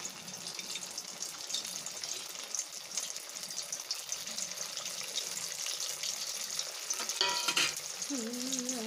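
Sabudana vadas deep-frying in hot oil in a steel kadhai: a steady crackling sizzle as more patties are slid into the oil. A short, sharper sound about seven seconds in, and a brief voice near the end.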